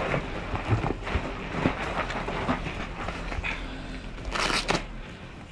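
Tactical gear and clothing rustling and boots scuffing on a gravel floor as players shift and crouch, with irregular knocks and clicks of equipment, and a short rushing noise about four seconds in.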